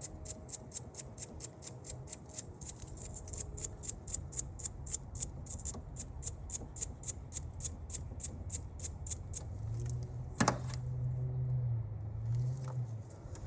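Wire brush worked by hand, scrubbing a battery cable clean in quick even strokes of about four a second. The strokes stop near the end and a single sharp click follows.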